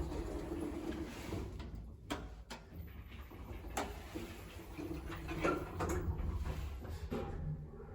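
Old Mitsubishi Elepet passenger elevator in motion, a low rumble overlaid by irregular knocking, clicking and rattling noises several times. The noises are the heavy abnormal noise of an ageing car still on its original, never-updated control system.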